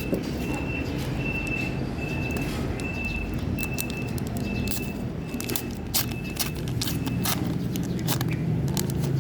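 A high electronic beep repeating in short pulses, a little under twice a second, over a steady low rumble. Sharp clicks and crackles come in over the second half.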